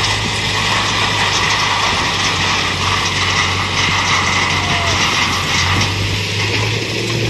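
Tipper truck's diesel engine running steadily with the dump body raised, over the rattle and rumble of a load of stones sliding out of the back of the body.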